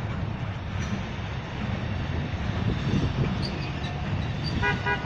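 Freight train cars rolling away along the track, a steady low rumble of wheels on rail. Near the end a multi-tone horn starts sounding.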